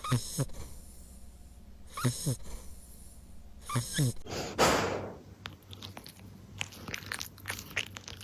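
Sleeping dog snoring: three short snores about two seconds apart, then a longer noisy breath out. A run of faint clicks follows near the end.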